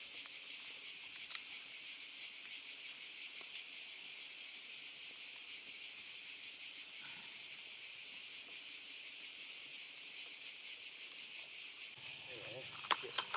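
A chorus of crickets chirping, a steady high trill with a fast pulse. A brief low sound comes near the end.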